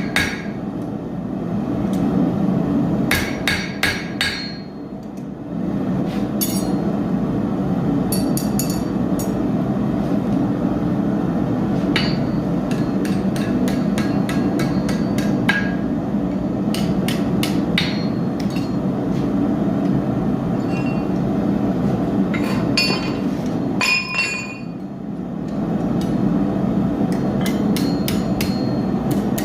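Blacksmith's hammer striking steel on an anvil in groups of quick blows with a bright ring, separated by short pauses, over a steady low rushing noise.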